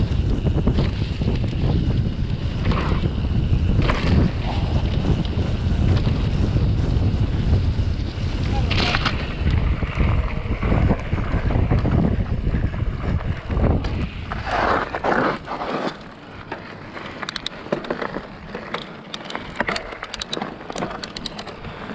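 Wind buffeting a chest-mounted action-camera microphone over the rumble of mountain bike tyres rolling on a grassy trail and then gravel. About sixteen seconds in the rumble drops away as the bike slows, leaving scattered light clicks and crunches.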